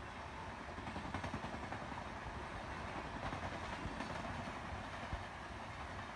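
Indian Railways LHB passenger coaches passing at speed: a steady rolling rush of steel wheels on rail with a low rumble and a few scattered clicks.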